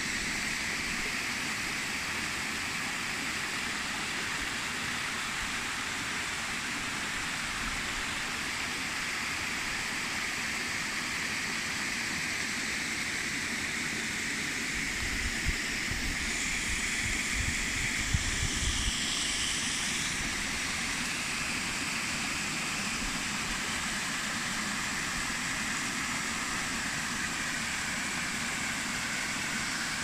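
Water of a small waterfall and rocky stream rushing steadily over stones. A few low thumps come about halfway through.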